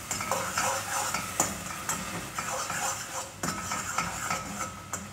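A utensil stirring food frying in a pot, scraping and knocking irregularly against the pan over a steady sizzle.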